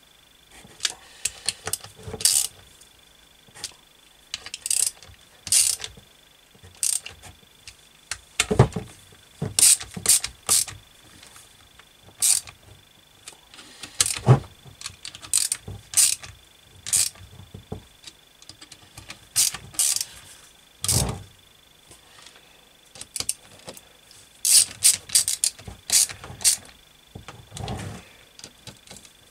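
Hand socket ratchet clicking in short runs as the side-cover bolts of a Husqvarna TC65 two-stroke engine are done up, with a few heavier knocks of metal tools on the casing.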